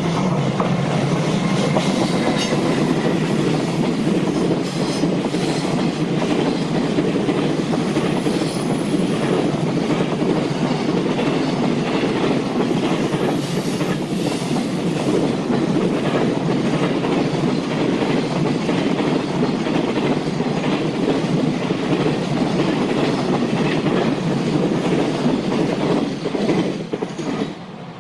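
JR Freight train rolling past close by, its wagon wheels clicking over the rail joints in a steady stream, with brief faint high wheel squeals. The noise falls away near the end as the last wagons pass.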